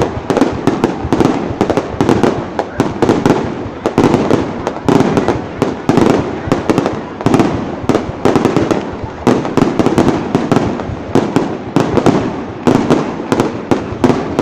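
A fireworks display: shells bursting in a dense, unbroken barrage of loud bangs, many each second.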